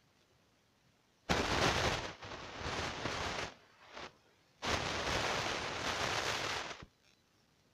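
Rustling and scraping on the phone's microphone as it is handled and moved: two rough bursts of about two seconds each, starting and stopping abruptly, with a short weaker one between them.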